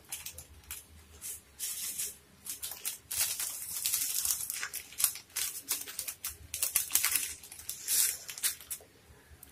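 Dried red chillies frying in hot oil in a nonstick pan: an irregular sizzle and crackle that comes in uneven spurts.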